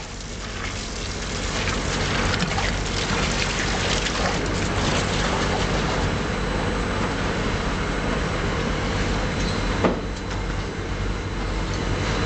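Mortar pump mixer running with a steady machine hum while water from a hose gushes and splashes into the mortar in its filter tank. The water noise builds over the first couple of seconds and then holds, and there is one sharp knock about ten seconds in.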